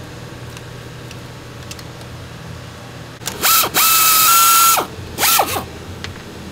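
Cordless electric ratchet motor spinning in three runs about halfway through: a brief burst, a longer run of about a second, and another brief burst. Each run whines up to a steady pitch and winds down.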